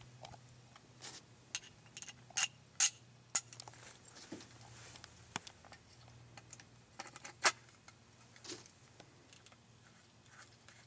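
Scattered sharp clicks and light knocks of metal and wooden gun parts being handled and fitted together as a Richardson 12-gauge slam-fire shotgun's pipe receiver and wooden stock are assembled by hand. The clicks come irregularly, a few louder ones between about two and three and a half seconds in and another about seven and a half seconds in.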